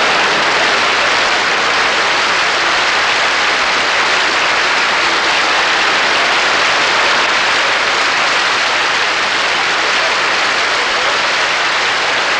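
A large audience applauding, loud and steady.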